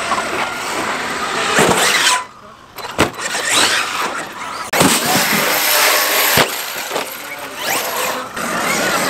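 Large electric RC trucks driving on dirt, their motors whining up and down in pitch as they speed up and slow down, with tyres churning loose dirt.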